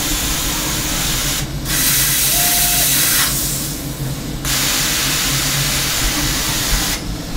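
Compressed air hissing inside a Hermle C400 machining centre during a tool change, over the machine's steady hum. The hiss cuts out briefly twice and stops near the end.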